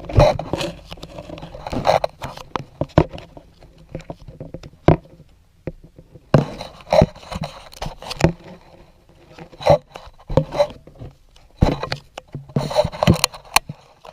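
Handling noise: irregular knocks, taps and scrapes of objects being moved about and set down on a hard surface.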